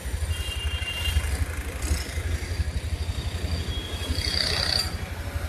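Street traffic noise with a steady low rumble, and a faint high-pitched tone briefly near the start and again near the end.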